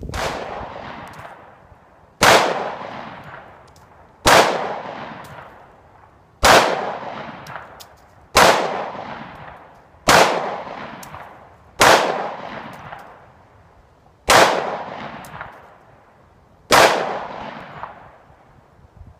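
Glock 20SF pistol firing 10mm Auto, 180-grain full metal jacket target loads: nine single shots, roughly two seconds apart. Each shot is sharp and trails off over a second or more.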